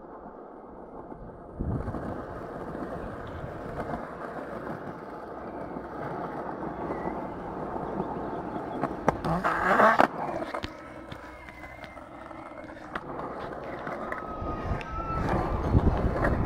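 Skateboard wheels rolling over a concrete skate-park surface: a steady gritty rolling noise, with a louder clattering burst about ten seconds in.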